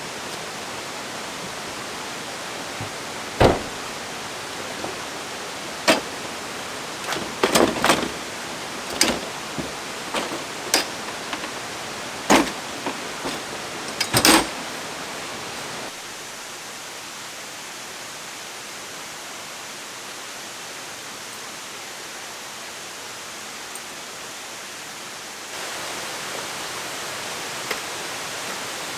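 Steady rushing noise of a nearby waterfall, broken in the first half by a dozen or so sharp, irregular taps and knocks. The rushing drops a little about halfway through and comes back up near the end.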